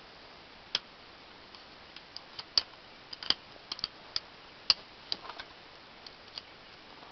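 Irregular light metallic clicks and taps from small steel parts being handled and fitted into a Roper Whitney No. 5 Jr hand punch as its punch and die are changed.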